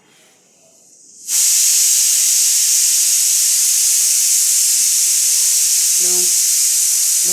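A loud, steady hiss that starts suddenly about a second in and holds evenly.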